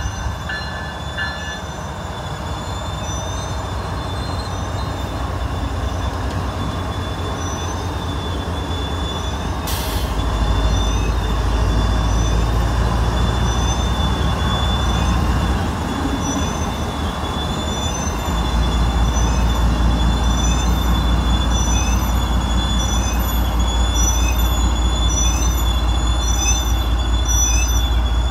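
CSX freight train's diesel locomotive moving slowly past, its engine rumbling and getting louder about ten seconds in and again near eighteen seconds, with a steady high squeal of wheels on the rail. A short hiss sounds about ten seconds in.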